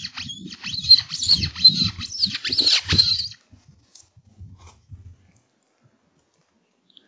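Fox call being worked: a quick string of high-pitched squeaks meant to draw a distant fox in. It stops about three seconds in, and only faint scattered sounds follow.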